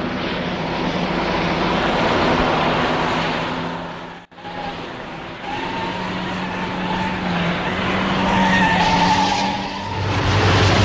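Renault 16's engine running hard at speed, with road noise. It cuts out for an instant about four seconds in, then resumes with a wavering higher whine over it.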